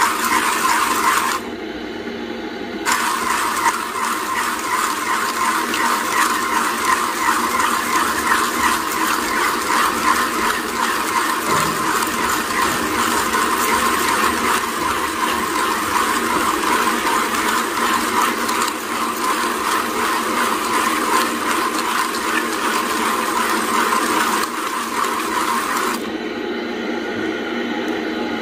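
1Zpresso hand-cranked coffee grinder grinding whole coffee beans: a steady crunching crackle, broken by short pauses in the cranking about two seconds in and again near the end.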